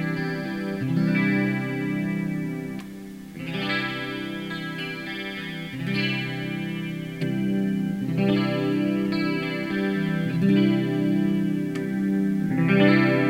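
Custom-built Ibanez RG electric guitar played through distortion and effects, holding long sustained notes and chords that change about every second.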